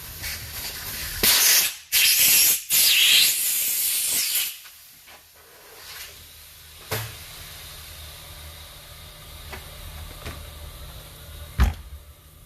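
Pressurised gas hissing out in three short bursts over about three seconds, then a click and a single knock near the end.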